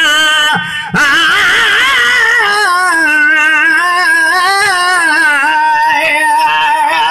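Men singing a molood (devotional praise song) over a PA microphone, in long wavering held notes with a short break about a second in.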